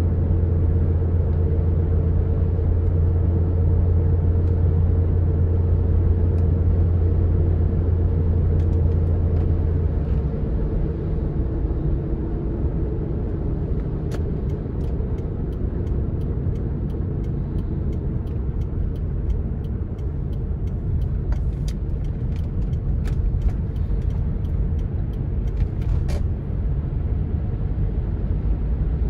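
Car interior road and engine drone from driving on a wet road. Its deep hum drops away about a third of the way in, and scattered light ticks come through in the second half.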